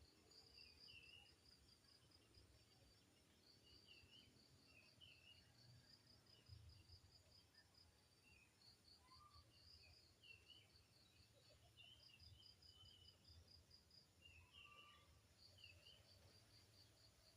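Faint insects chirping in rapid pulsed trains, broken by short pauses, with occasional short higher chirps over a low rumble.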